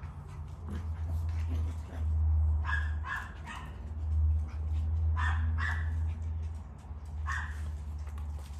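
Miniature Poodle puppies yipping in short, high barks: three in quick succession about three seconds in, two more a couple of seconds later, and one near the end. A steady low rumble runs underneath.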